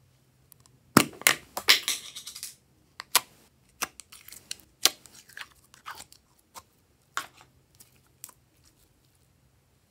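Small plastic slime tub being opened: a few sharp clicks and a short crackle as the lid comes off, then scattered sticky pops and clicks as red glitter slime is pulled out of the tub by hand.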